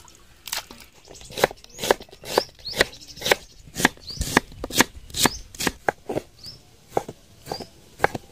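Large kitchen knife slicing onion and tomatoes on a wooden chopping board: a steady run of sharp cuts, about two a second.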